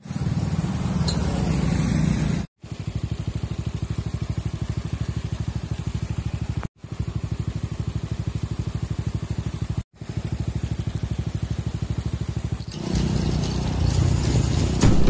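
Motor scooter engines, heard in several short cut clips: scooters passing on a street, then a scooter engine running with an even, rapid pulsing. Near the end the engine and road noise get louder and rougher.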